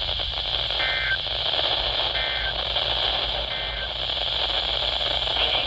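NOAA Weather Radio end-of-message signal: three short SAME digital data bursts, a little over a second apart, marking the end of the warning broadcast. Steady radio static and hiss runs underneath.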